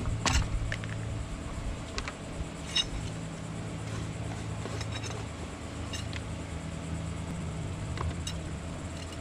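Scattered light clicks and small metallic clinks from handling metal hardware, a second or two apart, over a steady low hum.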